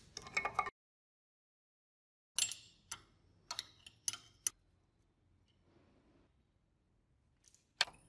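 Sharp metal clicks and ticks as pliers grip and turn the rusted pivot bolt of old tin snips to take them apart. There is a brief clatter at the start, a handful of separate clicks from about two and a half to four and a half seconds in, and one more sharp click near the end.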